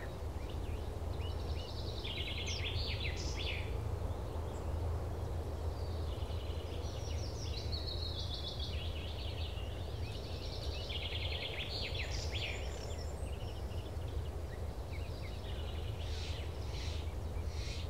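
Quiet outdoor ambience: birds chirping and trilling in several short bursts over a steady low hum.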